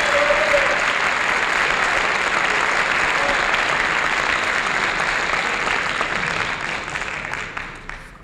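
Concert audience applauding at the end of a live jazz number; the applause fades out over the last two seconds.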